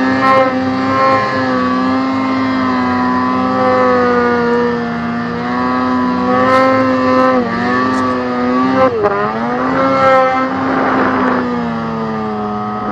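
Snowmobile engine running hard at high revs while ploughing through deep powder, its pitch dipping briefly twice and picking up again a little past halfway. A short rush of noise comes about two-thirds of the way through.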